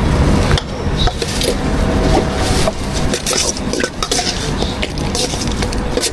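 Cleaver strikes on a wooden chopping board, irregular knocks, over a steady low rumble of street traffic.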